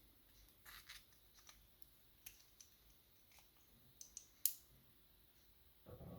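Faint small metal clicks and scrapes of a lock's pins, springs and tool being handled as the last pin stack is taken out of a disassembled pin-tumbler lock, with one sharper click about four and a half seconds in.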